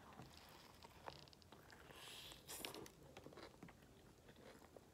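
Faint chewing of a crunchy fried chicken sandwich, with soft scattered crunches and a couple of slightly louder ones a little after two seconds in.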